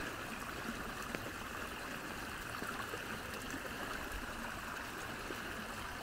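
Rainwater runoff running steadily in a small stream after the first heavy rain following a dry summer.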